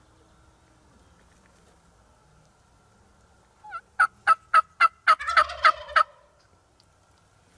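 A run of about eight loud turkey yelps, roughly three a second, starting a little past halfway, with a rolling rattle under the last few notes.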